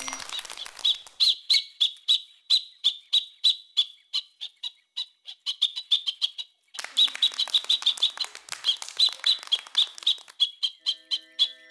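A young chick peeping rapidly, with short high peeps about three a second and a brief break just past halfway.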